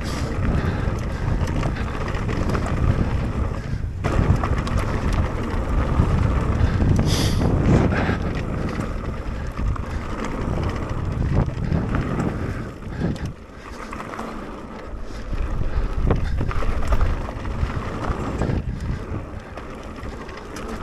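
Wind buffeting the microphone of a mountain bike rider moving at speed, over the rumble and rattle of the bike on a forest trail. The noise eases for a few seconds about two-thirds of the way through, then picks up again.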